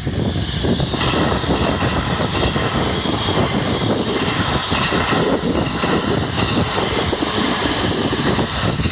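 A train passing over a level crossing close by: loud, steady rumble of wheels and running gear on the rails, with the crossing's warning bell ringing as steady higher tones above it.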